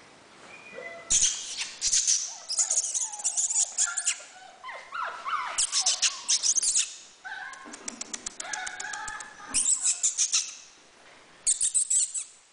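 Weimaraner puppies play-fighting: short squeaky yips and whines among bursts of scuffling and quick claw clicks on a tiled floor, easing off briefly about seven seconds in and again near the end.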